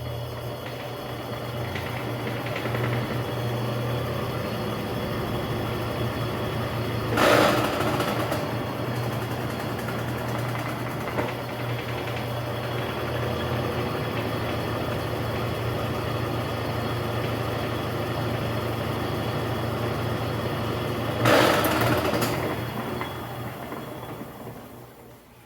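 Brastemp BWL11 top-loading washing machine spinning in its spin cycle: a steady motor hum with mechanical noise, two loud bursts about 7 and 21 seconds in, then winding down near the end. The noise is put down by the repairer to a fault in the transmission mechanism, probably the planetary gears of a gearbox run dry after a seal leak.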